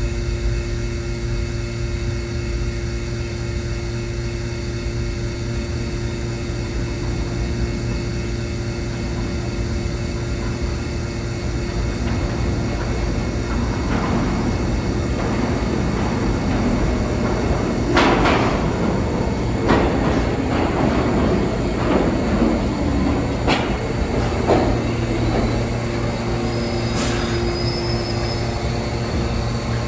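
R46 subway train pulling into an underground station. A low rumble grows louder about halfway through, then sharp clanks and wheel clatter come as the cars run in along the platform, with a brief high squeal just before the train stops.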